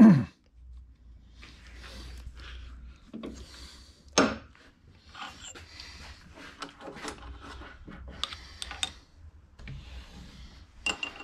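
A brief voice-like grunt right at the start, then scattered metallic clinks, clicks and scraping of tools being handled at a metal lathe, with a faint steady low hum underneath. The handling comes from a chuck key tightening a three-jaw lathe chuck on a small bronze distributor gear before it is reamed.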